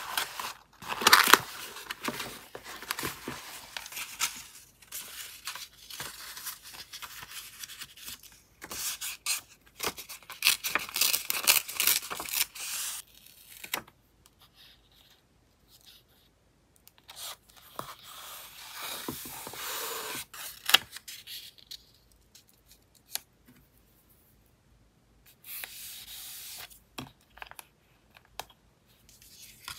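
Scrap paper and card rustling and crinkling under the hands as they are sorted, lifted and pressed down, in bursts with quiet pauses between.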